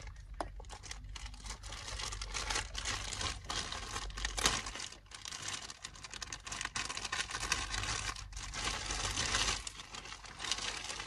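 Thin clear plastic packaging bag crinkling and rustling as hands handle it and pull it open, with a sharper crackle about halfway through.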